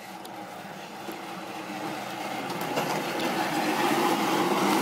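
Weighted push sled (prowler) loaded with bumper plates scraping and grinding across asphalt as it is pushed, growing steadily louder as it comes closer.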